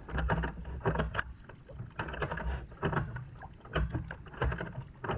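Double-bladed kayak paddle dipping into the sea on alternate sides, each stroke a splash of water, coming about once a second.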